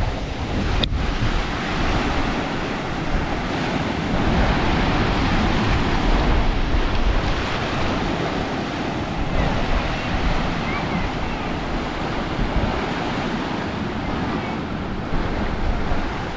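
Ocean surf washing steadily against rocks, with wind buffeting the microphone. A single sharp click about a second in.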